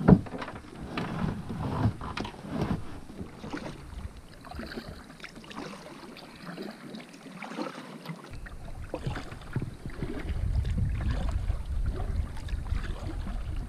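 Pelican plastic kayak being loaded and paddled: a loud knock at the start and a run of knocks and scrapes as gear goes into the hull, then scattered paddle strokes in the water. A low rumble builds in the last few seconds.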